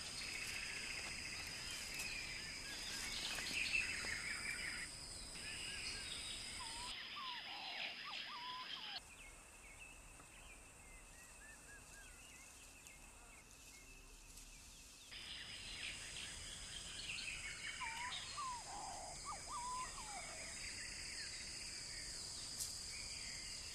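Bird chirps and twittering over a steady high, insect-like whine and hiss. The whole bed drops away abruptly about nine seconds in and cuts back in about six seconds later.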